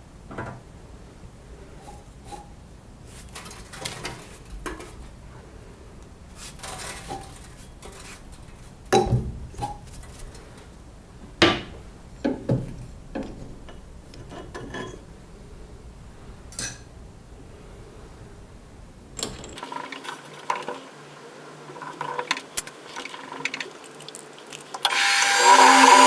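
Workshop tool and metal-part handling: scattered knocks, taps and clinks, a few of them sharp. Near the end a power tool starts and runs steadily with a pitched hum.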